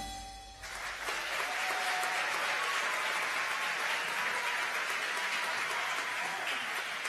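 The choir's final chord dies away in the hall, and within the first second the audience breaks into steady applause.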